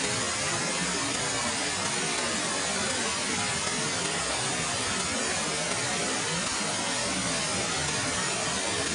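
Waterfall falling and rushing, a steady, even wash of water noise that does not change.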